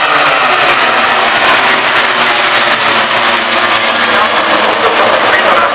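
A pack of MotoGP racing motorcycles with 1000 cc four-stroke engines passing at full throttle. Their engine notes overlap into a loud, continuous high-pitched wail.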